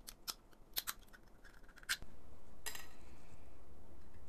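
Utility knife blade cutting and prying support material off a 3D-printed PLA part: a run of sharp plastic clicks and snaps, then one louder crack a little before three seconds in as a support piece breaks away. A steady low background noise comes up about two seconds in.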